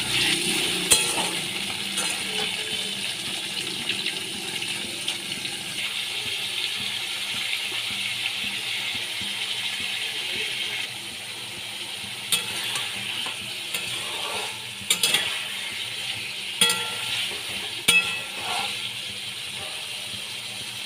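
Paneer cubes frying in hot oil in a wok: a steady sizzle that eases a little about halfway, with a few sharp clinks of a spatula against the wok as the cubes are stirred, most of them in the second half.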